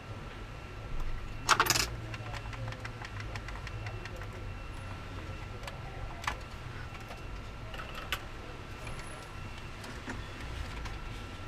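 Small metal clicks and clinks of tools or parts being handled, the loudest a quick cluster of clicks about one and a half seconds in, with single clicks later, over a steady low hum and a faint steady whine.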